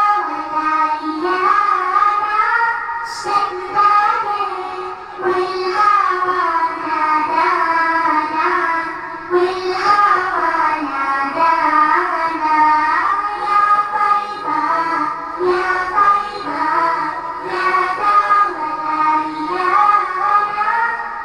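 Girls' voices singing a song together, a continuous melody of long, sliding phrases.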